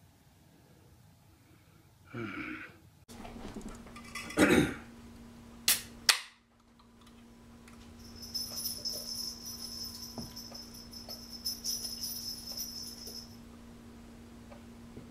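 A thump, then two sharp clicks as a stout is opened, then the stout being poured into a pint glass: a steady fizzing hiss for about five seconds.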